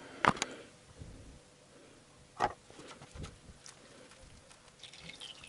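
A few light clicks and knocks from handling the transmission's internal oil filter and its bolts as it is pulled off the CVT: two quick clicks at the start and a single knock about two and a half seconds in.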